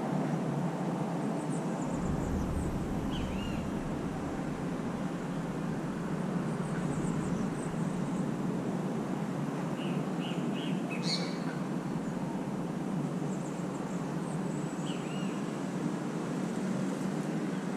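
Steady low background noise with a few faint, short bird chirps scattered through it, some high and thin and a few lower notes that drop in pitch.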